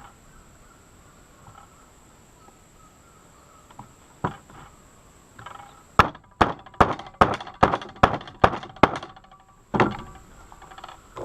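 Sharp blows struck on a wooden 2x4 board as it is broken open to get at a lodged bullet: one knock about four seconds in, then a fast run of about ten strikes, roughly three a second, and one more near the end.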